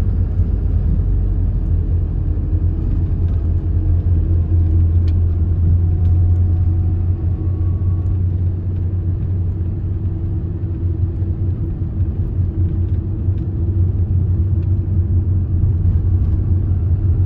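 Microbus driving along a road, heard from inside the passenger cabin: a steady low rumble of engine and tyres.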